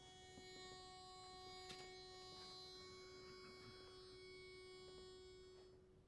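Pitch pipe blowing one long, steady reedy note that stops near the end, sounding the starting pitch for the barbershop quartet's next song.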